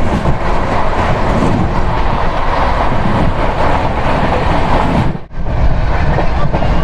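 Express train running at speed, heard from an open coach door: wind and wheel-on-rail roar, with another train's coaches rushing past close on the next track. The sound cuts out briefly about five seconds in, then the running noise resumes.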